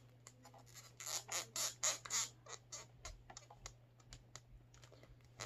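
Hard plastic of a King Ghidorah action figure creaking and squeaking in a quick run of short scrapes as a tail peg is forced into a very tight socket. The squeaks come thickest in the first half and thin out later.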